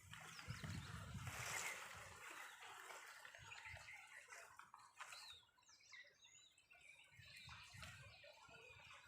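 Faint farmyard ambience with scattered short bird chirps and calls, over a soft haze and intermittent low rumbles.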